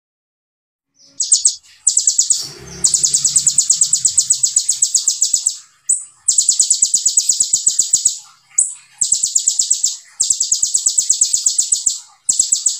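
Kolibri ninja sunbird singing 'tembakan': bouts of fast, closely packed high notes, about nine a second, each run lasting one to three seconds with short breaks between. The song starts about a second in.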